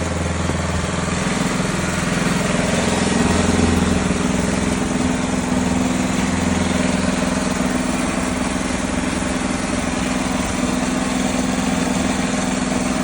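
Noma Canadiana snow blower's 10 hp Tecumseh engine running steadily.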